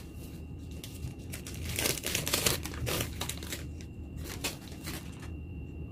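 Crinkling and rustling of a long paper shop receipt being unrolled and handled, in short, irregular bursts.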